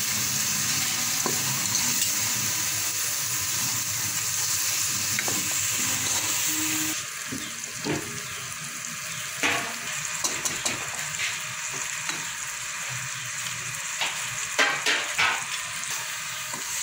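Tomato and onion masala sizzling in hot oil in a pot while it is stirred with a wooden spoon. About seven seconds in the sizzle drops, and the spoon scrapes and knocks against the pot, loudest near the end.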